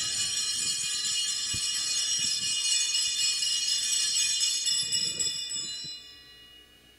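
Bells ringing in a steady jingling shimmer of many high tones, which fades away about six seconds in.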